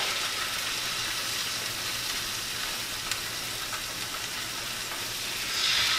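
Salmon fillet frying skin-side down in hot olive oil, a steady sizzle at high heat.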